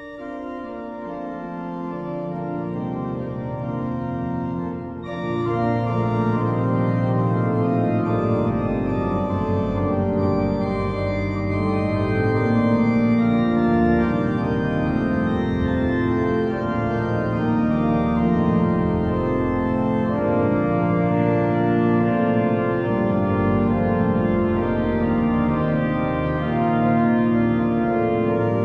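Church pipe organ playing sustained chords, starting softly and growing fuller and louder about five seconds in.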